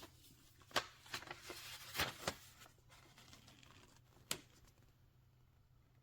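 Several light clicks and knocks, as of an object being handled, over faint room tone. They come in the first two and a half seconds, with one more a little past four seconds.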